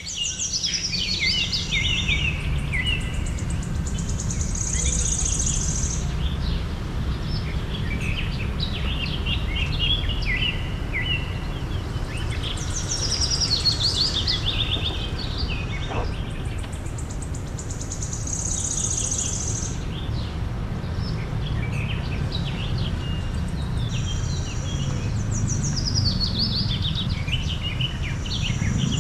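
Songbirds singing, with repeated high chirps and trills that step downward in pitch, over a steady low rumble.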